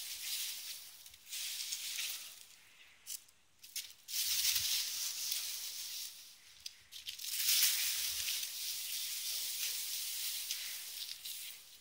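Boxwood leaves and twigs rustling and rattling in repeated bursts as a Lakeland Terrier puppy tugs and shakes the bush, with a brief lull about three seconds in.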